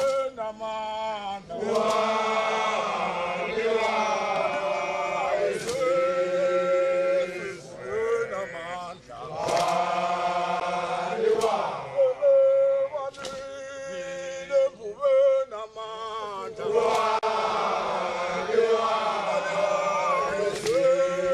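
A group of men chanting a Zulu song, with long held notes. Sharp hits cut through the singing every few seconds.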